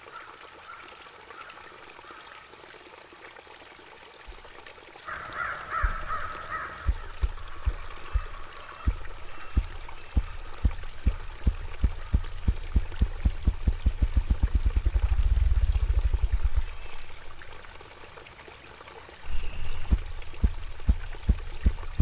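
Male ruffed grouse drumming: deep, hollow wing-beat thumps that start slowly about five seconds in, speed up into a blurred roll and stop, after which a new drumming series starts slowly near the end. This is the male's drumming display.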